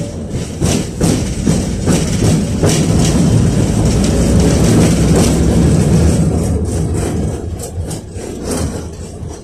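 KTM-5 (71-605A) tram heard from inside while running: a heavy low rumble of the wheels and running gear on the rails, with irregular clacks as the wheels cross rail joints. The rumble swells through the middle and eases near the end.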